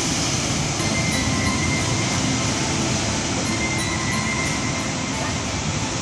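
Heavy surf crashing on a rocky shore: a steady, dense roar of breaking waves and churning foam.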